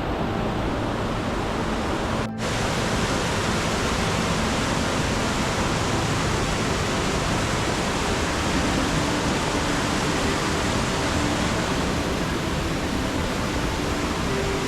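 Steady rush of a waterfall's falling water, a dense even noise. It cuts out for an instant about two seconds in and comes back a little brighter.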